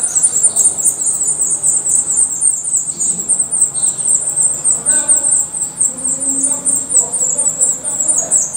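Black redstart nestlings begging at the nest: a fast, unbroken stream of thin, high-pitched calls, many a second, while the female stands at the rim with the chicks gaping for food.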